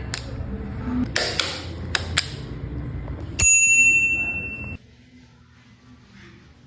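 Clicks and knocks, then a bicycle bell struck once about three and a half seconds in, giving one bright ring that cuts off abruptly after about a second and a half.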